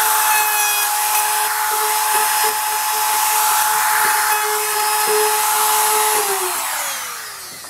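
Router running at full speed as it cuts a hinge mortise into a wooden door slab along a template guide, a steady high whine over a hiss. About six seconds in it is switched off and winds down, the whine falling in pitch and fading away.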